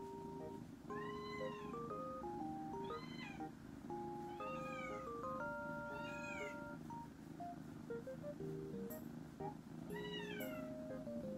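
A kitten meowing about five times, spaced a second or more apart, each short call rising then falling in pitch, over light background music.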